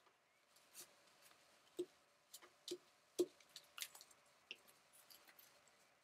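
Scissors cutting paper: quiet, irregular snips, with the clearest ones nearly two and a bit over three seconds in.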